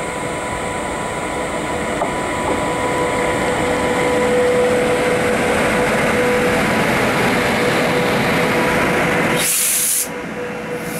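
WAP-7 electric locomotive hauling a passenger train, passing at close range: a steady running noise that grows louder over the first few seconds, with a steady whine running through it. The sound drops away abruptly near the end.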